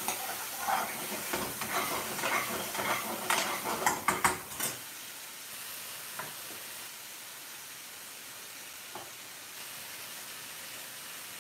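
Pre-cooked chicken pieces in curry sauce sizzling in a metal frying pan while a metal spoon stirs and scrapes them, with a few sharp knocks of the spoon against the pan about four seconds in. After about five seconds the stirring stops and a steady sizzle carries on.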